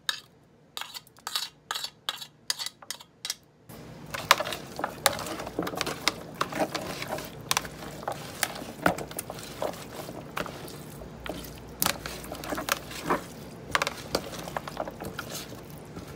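A quick run of sharp clicks and taps as diced bell peppers are knocked off a plate into a plastic food container. About four seconds in, hands begin working the peppers into raw oxtails in the tub: irregular squishing, rustling and clicks against the plastic.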